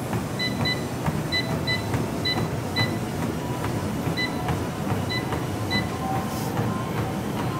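Life Fitness treadmill console beeping about nine times as the speed is stepped up for a jog, over the steady run of the belt and motor and the regular footfalls on the deck. A faint steady motor whine comes in about halfway through as the belt speeds up.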